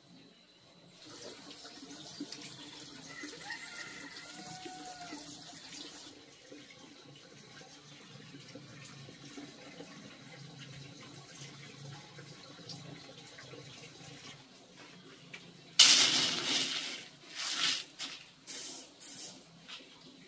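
Water running and splashing: a steady stream for the first few seconds, a quieter stretch, then several loud splashing pours in quick succession near the end.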